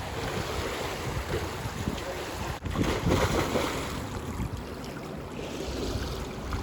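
Water rushing and splashing against a moving boat's hull in choppy sea, with wind buffeting the microphone and a louder surge of spray about three seconds in.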